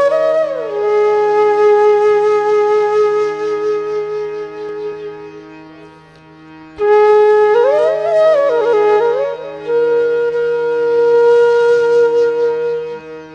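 Background music: a melody of long held notes with quick ornamented turns, over a steady low drone.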